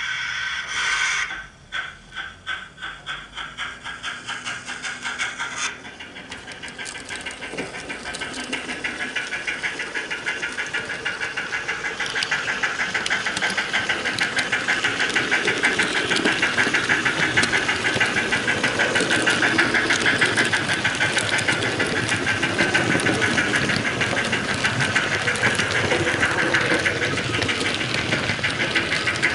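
Steam sound from the sound decoder of an HO-scale model of the Belgian Type 12 streamlined steam locomotive: a hiss, then rhythmic chuffing that starts about a second and a half in at around three beats a second, quickening and growing louder as the locomotive gets under way.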